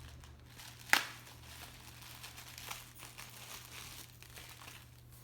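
Packaging crinkling and rustling as a 3D-printed ornament is unwrapped, with one sharp click about a second in.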